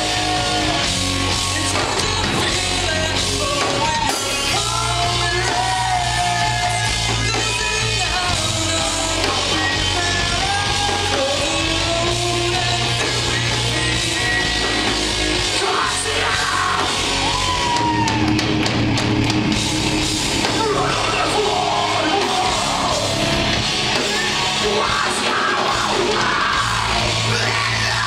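Live rock band playing loud music, with a singer's voice carrying over the band.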